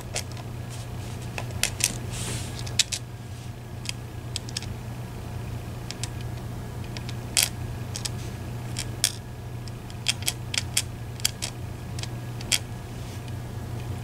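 Small metal Medeco lock pins and tweezers clicking and tapping on a plastic pin tray as the pins are handled, in scattered irregular ticks over a steady low hum.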